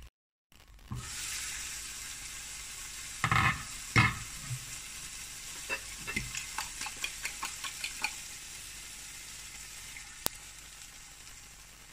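Diced potatoes sizzling in a frying pan with a steady hiss. Two loud clattering knocks come about three and four seconds in as the glass pan lid is handled, then a run of quick clinks of a fork against the ceramic bowl of beaten eggs, about three a second, and a single sharp click near the end.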